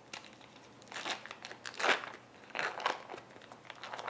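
Foil wrapper on a block of cream cheese being peeled open by hand, crinkling in a few irregular rustles, the loudest about two seconds in.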